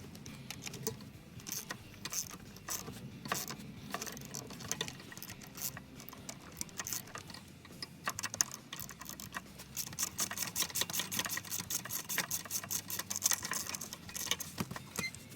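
Rapid, irregular clicking and ticking that grows denser and faster about eight seconds in.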